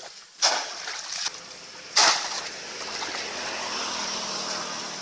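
Two loud splashes in water, the first about half a second in and a louder one about two seconds in, followed by a steady rush of running, trickling water.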